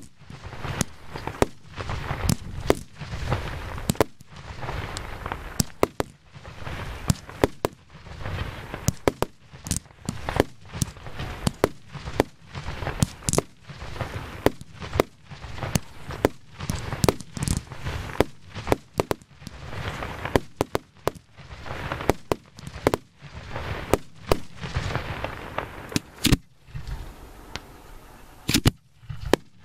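Fireworks firing and bursting close to the launch batteries: a fast, irregular run of sharp bangs over a continuous low rumble, thinning to a few scattered bangs near the end.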